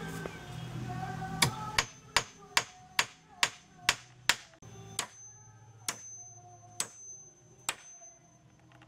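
Hammer driving a nail into wooden roof planks: a quick run of about eight blows, two to three a second, then three slower, spaced blows near the end.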